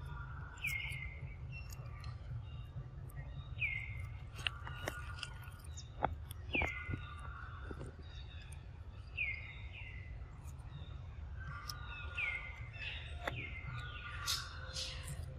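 Birds calling over and over, a short falling call every two to three seconds with higher chirps between, over a steady low background rumble. A few sharp clicks and crunches come from a long-tailed macaque biting and chewing fruit.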